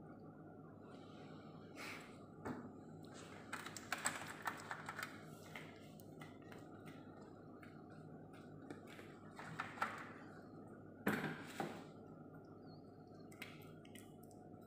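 Plastic blood bag and its tubing being handled with gloved hands: scattered rustles and small clicks, the loudest about eleven seconds in, over a steady background hum.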